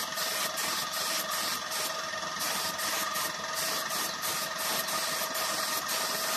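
Air-fed gravity spray gun hissing as it sprays thinned surfacer onto an iron grill, over the steady hum of the air compressor, the hiss breaking off briefly several times.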